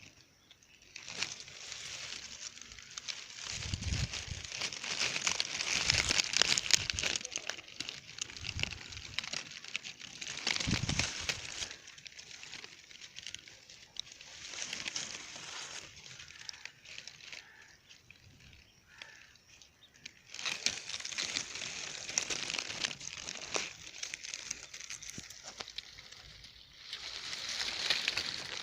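Crackly, dry rustling that comes and goes in stretches, with a few low bumps about four, six and eleven seconds in.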